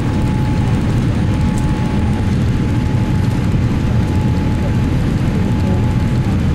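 Cabin noise inside a Boeing 787-8 airliner: a steady, loud low rumble of engines and airflow with a faint steady whine above it.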